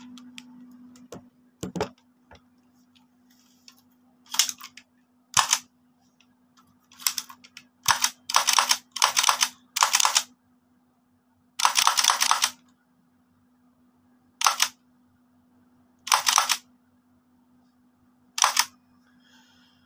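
X-Shot blowback toy blaster pistol being worked by hand, its plastic slide and mechanism making about a dozen short, sharp bursts of noise, several in quick succession around the middle and one longer one shortly after.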